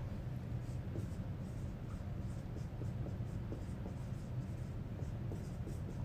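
Dry-erase marker writing on a whiteboard: a run of faint, short scratchy strokes, mostly in the second half, over a steady low room hum.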